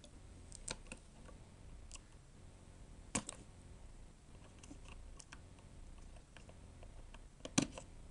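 Faint, scattered small clicks and taps of hand work on the opened MacBook's logic board while its connectors are being pried off, with two sharper clicks about three seconds in and near the end.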